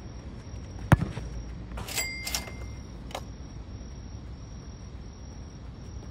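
A football kicked hard, a single sharp thud about a second in. About a second later come two quick knocks with a short metallic ring.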